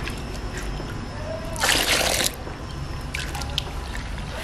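Soft, wet maida batter for papad being stirred and worked by hand in a bowl, with a short loud rush of noise about a second and a half in.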